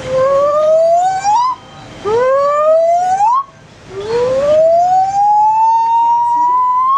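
Gibbon song: three loud whoops, each a clear note rising smoothly about an octave in pitch. The third is the longest and slowest rise, about three seconds.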